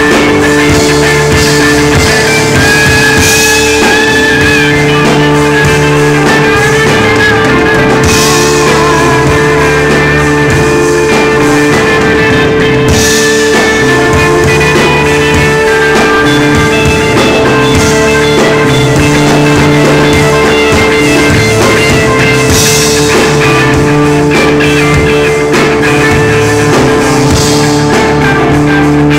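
Live rock band playing loudly: drum kit, electric bass and electric guitar through a Marshall amplifier. A held guitar drone runs over a shifting bass line, with a cymbal crash about every five seconds.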